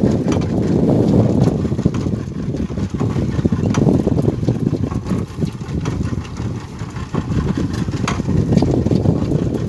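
75 hp outboard motor running on a small fishing boat, a steady low rumble, with a few faint scattered clicks.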